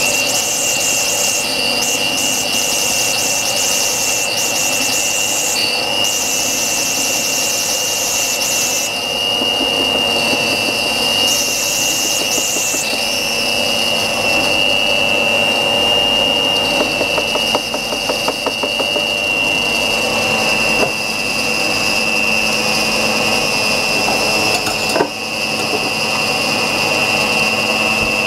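Handheld electric mixer running steadily on low speed, its beaters working a thick batter in a stainless steel bowl as flour and milk powder are mixed in, with a steady high whine over the motor hum. A brief knock comes near the end.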